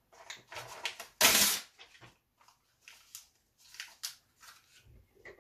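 A sheet of printed paper bitten and torn with the teeth, the loudest a rip about a second in, then chewed with irregular short crackles of paper in the mouth.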